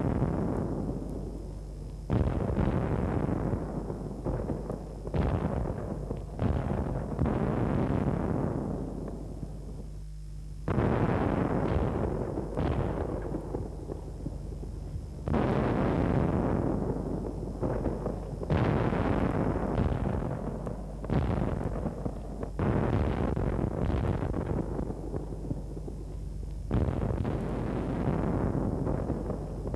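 A soundtrack of explosions: about a dozen sudden blasts at irregular intervals of one to four seconds, each booming and dying away over a second or two, over a steady low hum.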